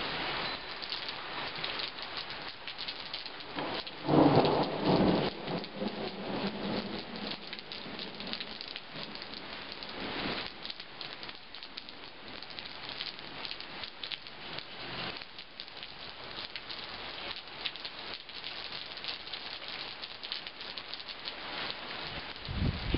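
Heavy rain falling steadily, with the patter of drops on nearby surfaces. A louder rumble of thunder swells and fades about four seconds in.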